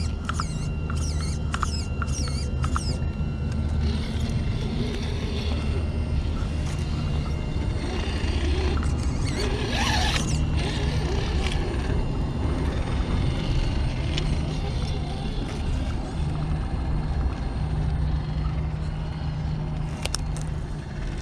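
Trail Honcho RC rock crawler driving slowly over rocks: a steady low drone from the electric motor and gears. There are short squeaks and clicks in the first few seconds and a louder scraping rush about ten seconds in.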